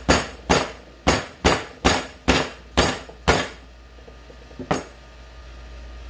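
Hammer blows on a deep-well socket used as a drift to drive a shifter bushing out. There are about eight sharp metal strikes at roughly two a second, then a pause and one more strike.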